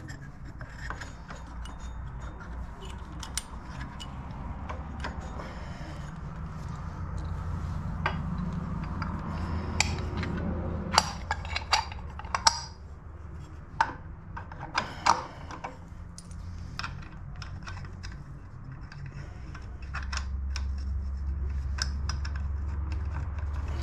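Metal parts of a torque converter clinking and knocking as the belt and the driver pulley halves are handled and slid onto the engine shaft, in scattered light clicks with a few sharper ones in the middle. A low steady hum runs underneath and grows louder near the end.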